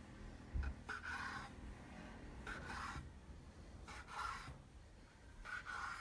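Kitchen knife cutting a rope of soft potato gnocchi dough into pieces on a floured wooden board: faint scraping strokes of the blade on the board, about five of them, roughly one every second and a half, with a soft knock about half a second in.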